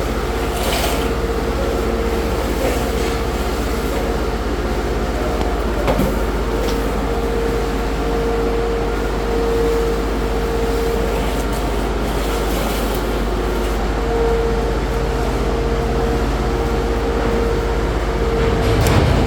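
A steady machine drone with a low hum and a sustained mid-pitched tone that swells and fades, with a few faint scrapes over it.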